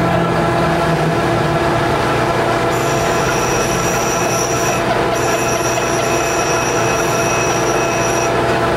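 Metal lathe running with a steady mechanical drone and hum. A high-pitched squeal joins about three seconds in, breaks off briefly around five seconds, and stops shortly before the end.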